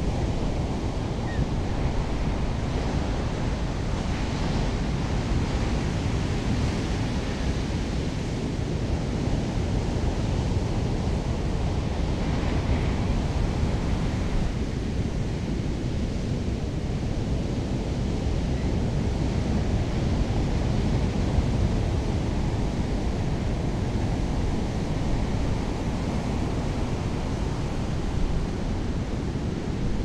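Big ocean surf breaking continuously, a steady low rush of whitewater, with wind buffeting the microphone.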